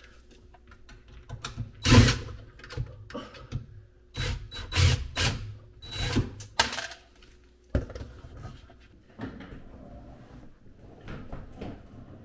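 Irregular scraping, rubbing and knocking of a built-in dishwasher being worked loose and slid out of its cabinet opening under the countertop. The loudest clatter comes about two seconds in, with a run of scrapes and a sharp knock past the middle.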